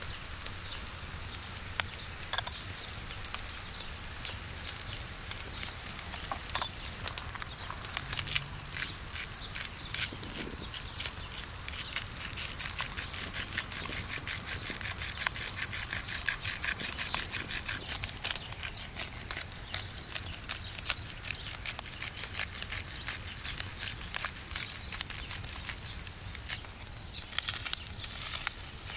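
Minced meat frying in a cast iron pan over an open fire: a steady sizzle full of small pops and crackles, growing denser about midway.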